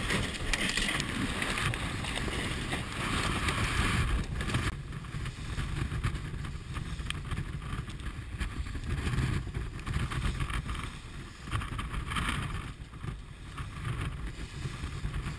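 Wind buffeting the microphone and water rushing and splashing along the hull of a J/30 sailboat heeled over under sail during a tack, with surges of spray in the first few seconds and again near the end.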